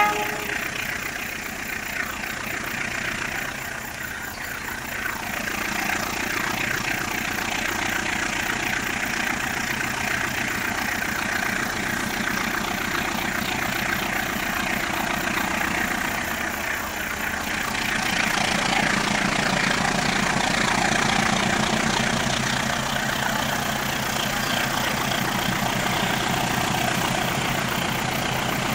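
CC 204 diesel-electric locomotive's engine working steadily under load as it hauls a pulp freight train up a grade, growing louder about two-thirds of the way through as it draws nearer.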